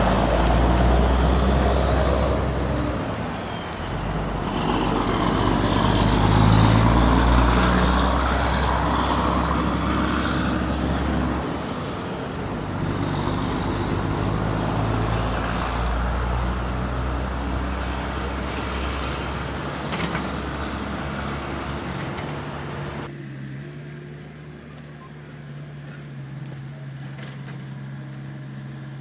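Heavy construction machinery diesel engine running under load, its pitch and level rising and falling. About 23 s in it changes suddenly to a quieter, steady low running note.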